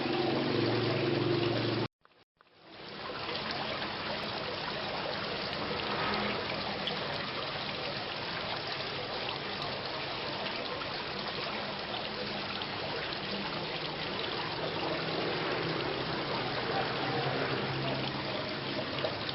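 Steady rain falling. About two seconds in it cuts out abruptly for about half a second, then fades back in.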